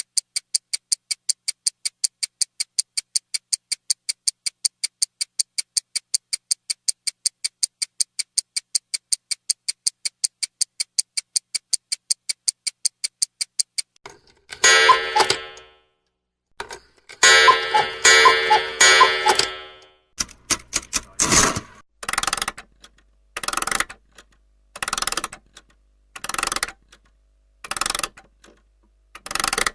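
Clock sounds in succession: rapid, even, high-pitched ticking for the first half, then two bursts of clock ringing about two to three seconds each, then slower, heavier ticks about one every second and a half.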